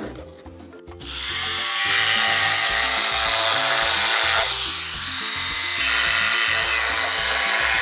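Jigsaw cutting through the boards of a wooden Euro pallet. It starts about a second in and runs steadily, with a brief dip in the sound about halfway through. Background music with a steady beat plays underneath.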